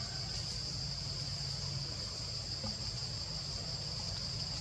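Insects droning steadily at one high pitch, over a constant low rumble.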